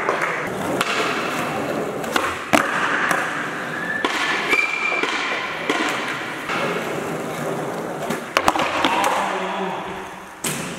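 Skateboard wheels rolling on a hard sports hall floor, with several sharp clacks of the board striking the floor as tricks are popped and landed. Voices chatter underneath.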